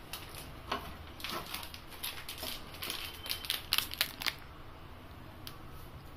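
Plastic biscuit wrapper crinkling in a run of quick crackles as it is handled and a biscuit is taken out, stopping about four seconds in.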